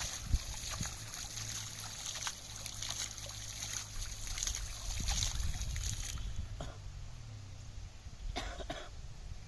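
Water trickling and splashing in short irregular spatters, busiest over the first six seconds, with one more brief splash near the end.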